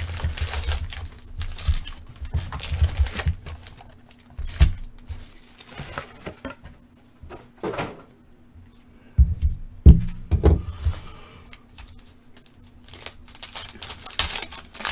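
Foil trading-card packs being handled: rustling and crinkling of the wrappers, with irregular thumps and taps as packs are pulled from the box and set down in stacks on the table. The loudest thumps come a little past halfway, and crinkling of a pack being opened comes near the end.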